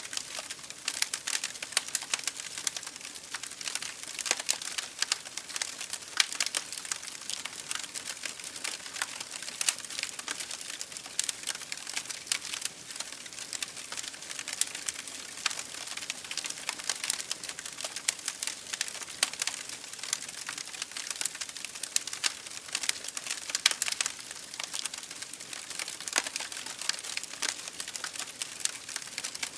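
Wood fire burning in an open fireplace, crackling and popping irregularly over a soft hiss.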